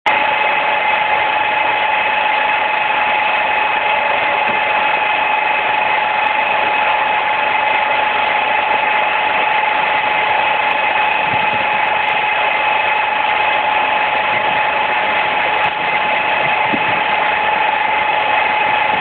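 Small electric motor of a handheld massager running with a steady whine that does not change in pitch.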